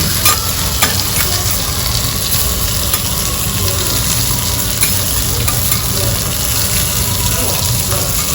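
Okonomiyaki and seafood sizzling steadily on a large flat iron griddle (teppan), with a few light clicks scattered through.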